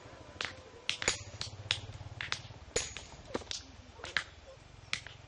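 Hand hammers striking stone, breaking rock into gravel: sharp, irregular clacks about three times a second.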